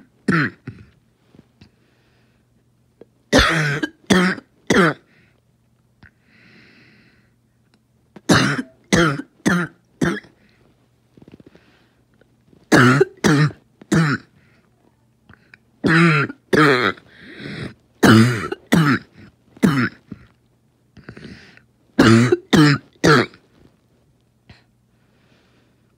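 Coughing fit from asthma: bursts of three to five sharp coughs every few seconds, with a drawn-in breath between some of the bursts.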